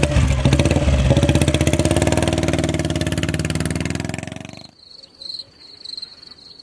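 Royal Enfield Bullet's single-cylinder engine running as the motorcycle pulls away, its firing pulses fading over about four seconds. The engine sound cuts off abruptly near the end, leaving only a faint high pulsing tone.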